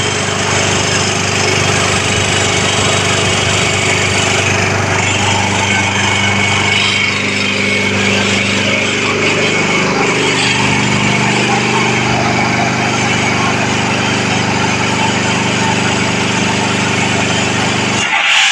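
J. P. Sauer WP151L ship's air compressor running steadily, loud and even, with a steady low hum underneath. A short, sharper burst comes near the end.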